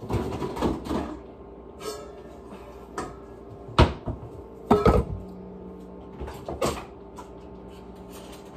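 Kitchen cupboard and dish clatter: a series of separate knocks and bangs, loudest about four and five seconds in, as a stainless steel mixing bowl is fetched and set down.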